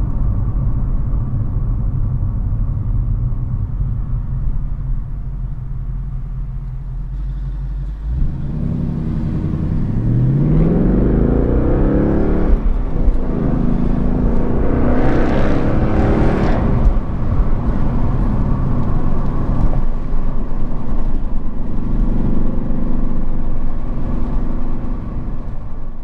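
2018 Mustang GT's V8 heard from inside the cabin, cruising steadily. About eight seconds in it accelerates hard: the engine note rises, breaks briefly at a gear change, rises again, then settles into a steady, louder cruise.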